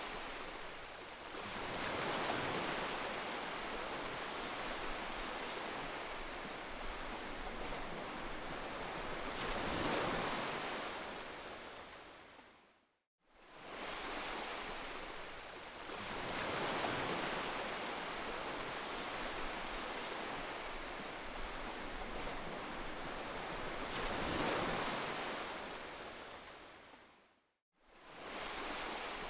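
Heavy rain, a steady hiss that swells and eases every several seconds. It fades out to silence and back in twice, about halfway through and near the end.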